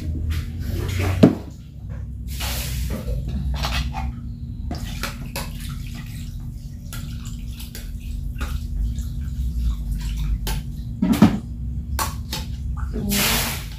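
Water poured from a plastic dipper into a small steel pot, in a few separate pours, with a spoon clinking and scraping against the metal pot between them.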